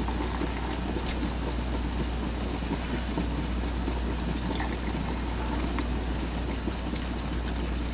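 Hot jelly ladled through a plastic canning funnel into a glass jar, with a few faint clinks of the ladle over a steady low hum and hiss.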